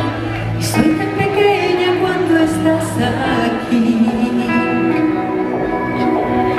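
Live Latin pop concert music: a female singer over keyboards and a band, at a steady loud level.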